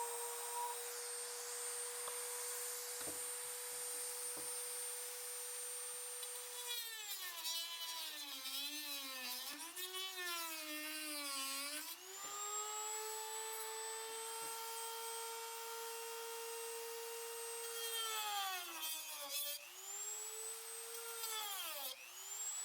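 A small power tool's electric motor whining at high speed, its pitch sagging and wavering several times as the load or trigger changes, then cutting off suddenly.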